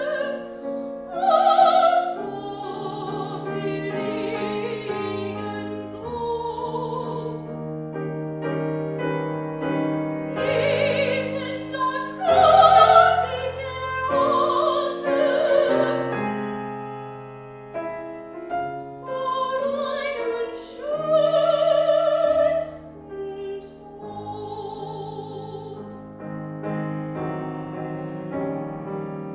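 Classical solo voice singing in operatic style with a wide vibrato on held notes, accompanied by piano.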